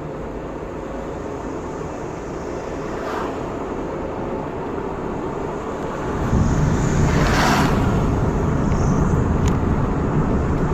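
A car driving along a road, with steady engine and tyre rumble. About six seconds in the rumble grows louder, and a brief rushing sound follows.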